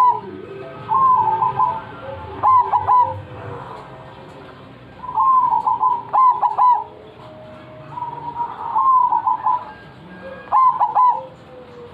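Competition bird singing in full voice, giving short phrases of quick, stuttering notes again and again, six or seven phrases a second or two apart.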